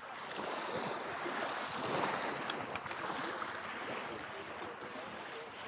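Small lake waves lapping against a pebble shore and the posts of a wooden dock, a steady splashing wash.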